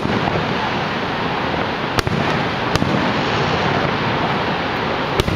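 Aerial firework shells bursting: four sharp bangs at uneven spacing over a steady rushing noise.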